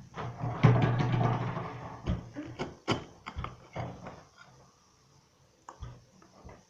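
A window being opened: a loud rush of noise with a low hum lasting about a second and a half, then a run of clicks and knocks that die away.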